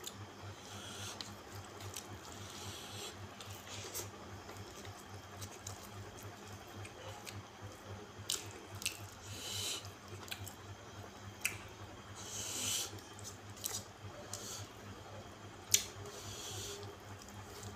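A person eating rice with his fingers close to the microphone: wet chewing and lip smacks with sharp clicks now and then, the loudest near the end, over a steady low hum.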